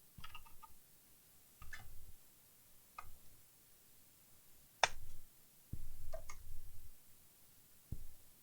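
Scattered clicks and taps of a laptop's parts and small tools being handled during reassembly, with one sharp click a little before five seconds in and a short knock near the end.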